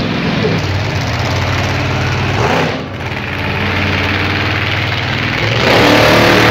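Monster truck engine running hard, easing off briefly about two and a half seconds in, then coming back on the throttle louder near the end.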